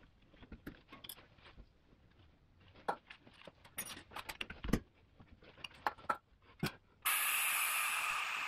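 Small clicks and knocks of a wrench and hose being worked at a rear brake caliper's bleeder valve. About seven seconds in, a steady hiss starts suddenly: the oil/fluid extractor running to vacuum brake fluid out through the bleeder.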